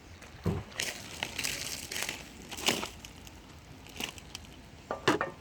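Irregular crunching and crackling: about six sharp crunches, unevenly spaced, a second or so apart.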